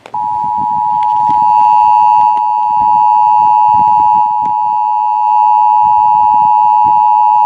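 Emergency Alert System two-tone attention signal: two steady tones just under 1 kHz (853 and 960 Hz) sounding together, loud and unbroken. It starts abruptly right after a short quiet gap and announces an emergency alert broadcast, here a weather warning from the National Weather Service.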